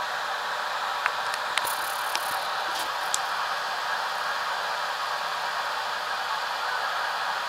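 Steady hiss from the ultrasound machine, with a few light clicks about one to three seconds in.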